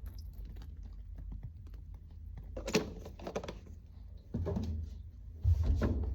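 Clothes and bags being handled while laundry is sorted: a run of light clicks and knocks, with three louder rustles and thumps in the second half.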